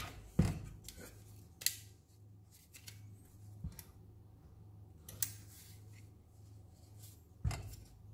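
Handling noise from a small metal RC jet turbine engine being turned over in the hands on a cutting mat: about five sharp clicks and knocks of metal parts and casing, the loudest near the start and near the end, over a steady low hum.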